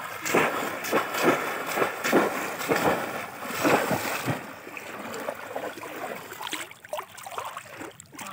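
Shallow river water splashing and sloshing as bamboo fish traps are lifted and thrust down and hands churn the water, heavy for the first half and easing off about halfway through.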